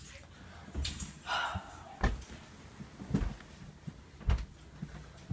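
A few dull thumps and knocks, roughly a second apart, with a short rustle about a second in: a person getting up off a bed and walking across a wooden floor.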